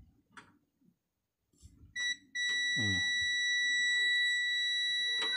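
A digital multimeter's continuity buzzer gives a steady, high-pitched beep as the probes touch the gas stove ignition push-button switch terminals, showing that the switch now conducts. It starts about two seconds in, drops out for a moment, then sounds continuously.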